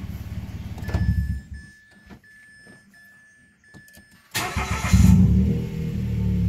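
Mitsubishi Mirage G4's engine running, then switched off, with a steady electronic beep tone sounding in short repeats. It is cranked and catches within about half a second, then settles to a steady idle: it now starts promptly after the throttle body cleaning that cured its crank-no-start.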